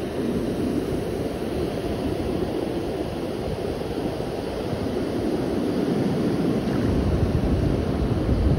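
Ocean surf and the wash of a wave running up the sand over bare feet, with wind noise on the microphone, growing louder near the end.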